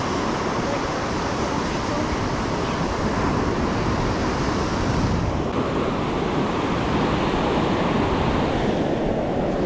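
Waves breaking and washing up a sandy beach, with wind on the microphone.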